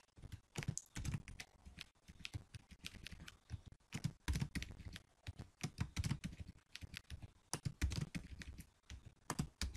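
Computer keyboard being typed on: irregular keystrokes in short runs with brief pauses, as colons are added in front of code placeholders.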